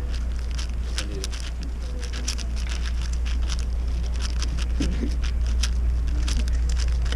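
Rapid, irregular clicking and clacking of a Moyu Weishi 6x6 speedcube's plastic layers being turned fast during a speedsolve, over a steady low hum.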